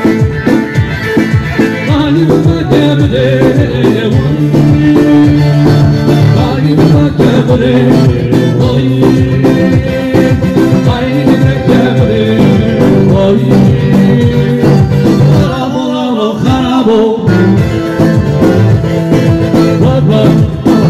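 Live band music from an amplified bağlama (saz) and an electronic keyboard, playing a dance tune with a steady beat, with the bağlama player singing into the microphone.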